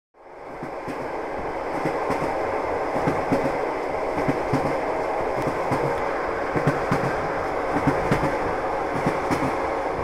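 A moving train heard from inside the carriage: steady rumble with irregular clicks and knocks from the wheels running over the rails, fading in over the first second.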